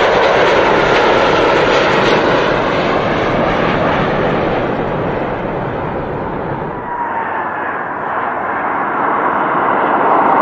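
Jet engines of a Boeing 787 Dreamliner at takeoff thrust as it lifts off and climbs away: a loud, steady noise with a high whine that slowly falls in pitch. The sound thins about seven seconds in and swells again near the end.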